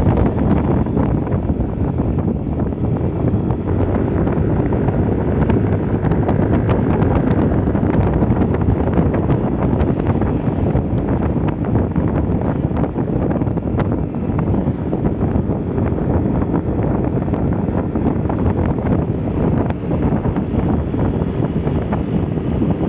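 Wind buffeting the microphone of a moving Yamaha Aerox scooter, with the scooter's engine and belt drive running underneath under load on a climb.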